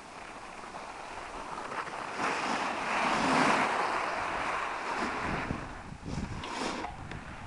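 Snowboard sliding and scraping over packed snow, a rushing hiss that swells for a couple of seconds in the middle, with wind on the microphone.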